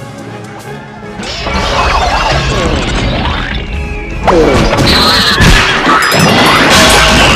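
Film score music with cartoon sound effects piled on top: crashes and whacks. The mix gets busier and louder after about a second, jumps louder again about four seconds in, and has sliding tones, one falling sharply at that point.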